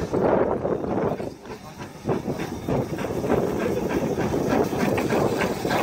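LMS Stanier Black Five 4-6-0 steam locomotive 45305 passing close with its train: steam hissing and wheels clicking and clattering over the rails, settling into a steady run of clicks about two seconds in.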